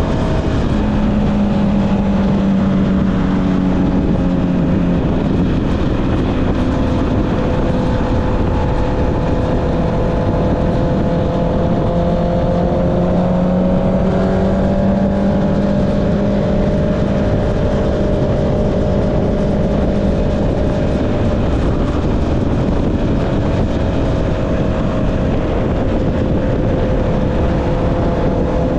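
Honda CB650R's inline-four engine breathing through an Akrapovic exhaust, running at a fairly steady cruising speed on the move, its pitch drifting slowly up and down, over a constant rush of wind.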